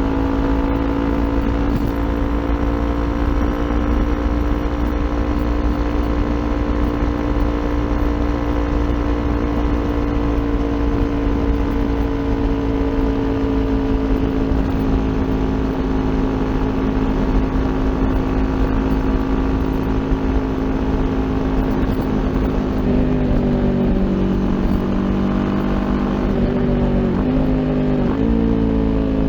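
Kawasaki Ninja 400's parallel-twin engine through an Akrapovic aftermarket exhaust, on the move with wind noise. Its pitch sinks slowly for the first twenty-odd seconds, then shifts in several steps near the end as the revs change through the gears.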